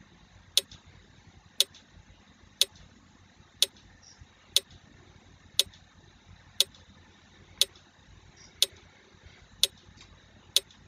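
Quiz countdown-timer sound effect ticking, one short sharp tick a second.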